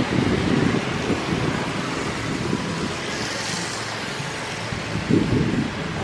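Wind buffeting the microphone in gusts, strongest at the start and again about five seconds in, over the steady rumble of a Boeing 737's jet engines as it rolls along a wet runway.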